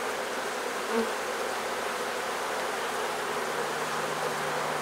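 Steady, dense buzzing of a large mass of honey bees around an open, crowded hive.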